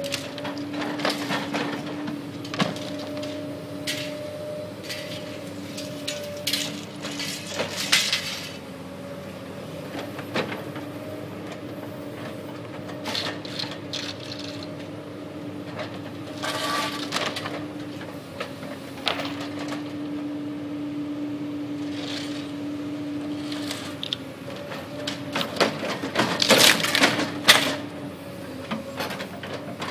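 Building demolition: a machine engine running with a steady hum under repeated cracks and crashes of wood and debris being broken and pulled down, with a loud run of crashing near the end.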